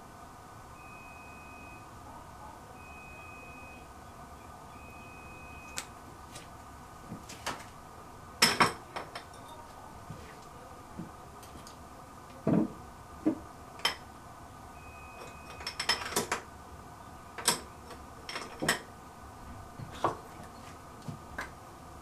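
Intermittent clicks and clatters of small makeup containers and tools being picked up, handled and set down on a hard counter, a dozen or so sharp knocks spread over the second half. A faint high tone sounds briefly three times in the first six seconds and once more midway.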